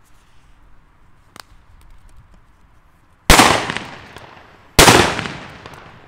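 Two very loud firecracker bangs about a second and a half apart, each dying away in a long echo. They are Chinese Hua Liang 'Super Böller' firecrackers loaded with 2–4 g of flash powder and plugged with plaster and sawdust.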